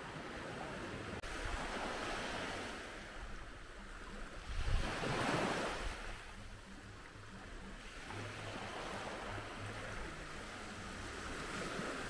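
Small sea waves washing onto a sandy beach, swelling and fading, loudest about five seconds in, with some wind rumbling on the microphone.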